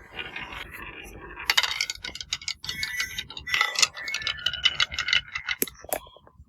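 Many marbles rolling down a marble-run track, clicking against the track and each other in a dense clatter that thins to a few single clicks near the end.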